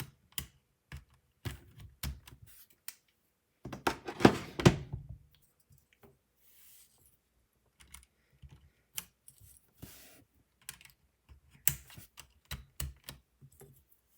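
Plastic keycaps clicking and clattering as they are handled and pressed onto a Ducky mechanical keyboard, in scattered clusters of clicks with the loudest, densest clatter about four seconds in.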